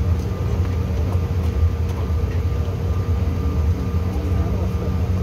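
Cabin noise of a Bombardier CRJ900 taxiing: a steady low rumble with an even hum from its two rear-mounted turbofan engines at low thrust.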